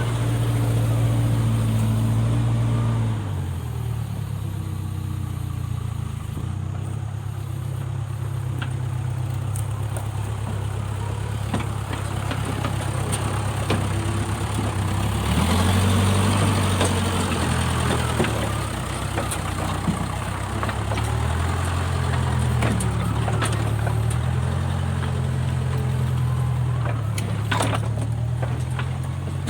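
Backhoe loader's diesel engine running steadily, its speed stepping down and back up several times as the machine works, with now and then a sharp knock.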